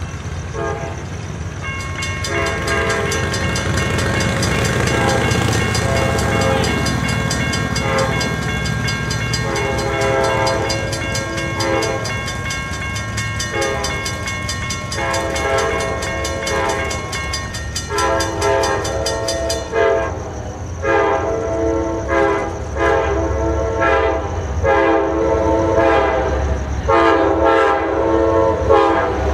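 Amtrak P42DC diesel locomotive horn sounding for the crossings as the train approaches. Long blasts at first, then repeated blasts about a second each near the end. Under the horn, a grade-crossing warning bell rings fast and steadily and stops suddenly about two-thirds of the way through.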